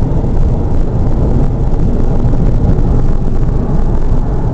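2001 Porsche Boxster S driving steadily at highway speed: an even, low rumble of road, wind and engine noise.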